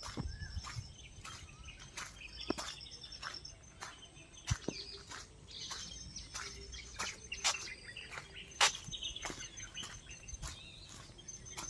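Several birds chirping and calling, with overlapping short chirps and a few quick trills, over scattered sharp clicks and a low rumble.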